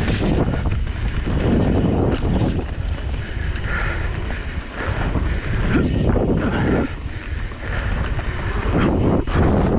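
Wind buffeting the microphone during a fast downhill ride, over a steady low rumble from the ride itself. The noise surges every second or so, with short rattles.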